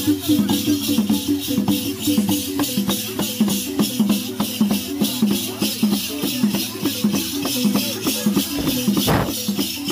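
Balafons, wooden xylophones with gourd resonators, playing a fast, steady run of struck notes over a continuous rhythmic shaking of rattles.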